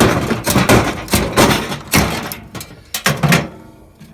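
Irregular metal knocks and clatter from working the small fan motor loose from a microwave's sheet-metal housing: a quick run of sharp hits that thins out near the end.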